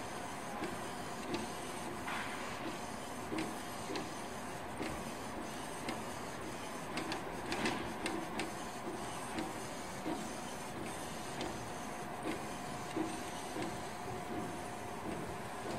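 Coffee printer's inkjet print-head carriage shuttling back and forth while printing, with a steady motor whine and a short click at each pass, about one every two-thirds of a second. A louder cluster of clicks comes about eight seconds in.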